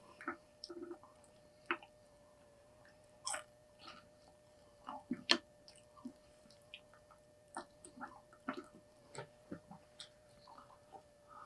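Close-up eating sounds from burgers and fries: scattered chewing, mouth clicks and small handling noises, the sharpest click a little past halfway, over a faint steady hum.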